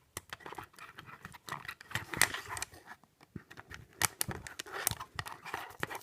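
Plastic Lego bricks clicking and rattling as they are handled and pressed together: an uneven run of small sharp clicks, loudest about two seconds in.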